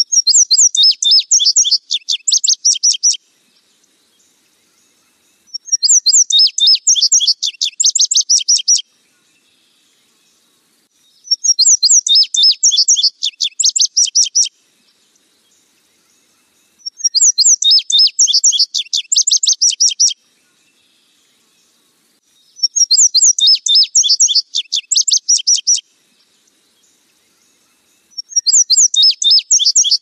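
Male indigo bunting singing: a rapid series of high, sharp notes lasting about three seconds, repeated about every five and a half seconds with silence between songs.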